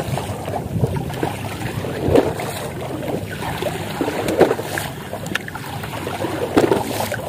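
Choppy sea water slapping and splashing against the side of a boat's hull, with a louder splash every two seconds or so.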